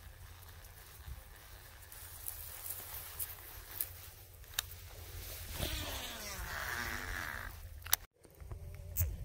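Low wind rumble on the microphone with scattered clicks, then a baitcasting fishing reel being wound for about two seconds, a whirring ratcheting sound that rises and fades.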